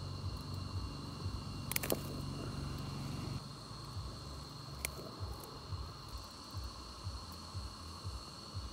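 Insects calling outdoors: a steady, high, unbroken trill throughout. A low hum underneath stops about a third of the way in, and a couple of sharp clicks sound about two and five seconds in.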